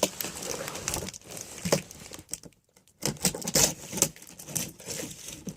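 Cardboard box and packaging being handled: irregular rustling and crinkling with light knocks and scrapes, stopping briefly about halfway through.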